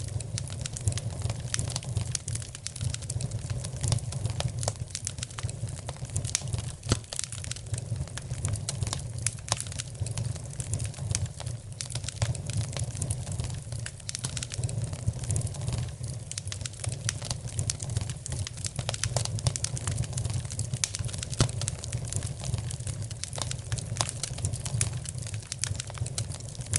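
Wood fire crackling in a fireplace: a dense run of small pops and snaps over a steady low rumble.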